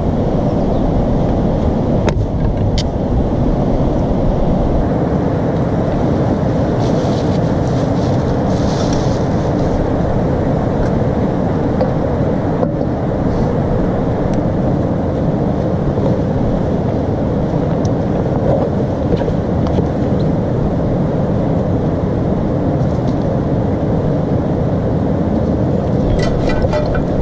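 River water rushing over rocks, a steady low roar. A few sharp clicks about two seconds in and a quick clatter of handled gear near the end.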